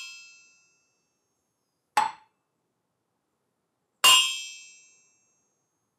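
A claw hammer tapping aluminium extrusion beams in turn: a ring from an earlier strike fades out at the start, a short, dead knock comes about two seconds in, and a bright metallic strike near four seconds rings on for about a second. The dead knock is the beam filled with epoxy granite (sand and epoxy resin) damping the vibration, and the long ring is the hollow, unfilled beam.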